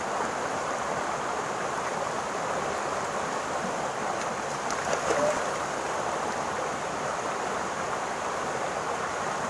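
Steady rushing of flowing water, like a stream, with a few faint clicks about halfway through.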